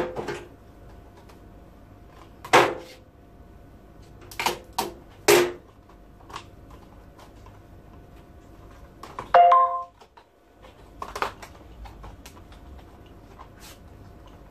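Blister packaging of plastic and card being handled and opened: scattered separate clicks, knocks and crinkles, with a short ringing knock about nine seconds in.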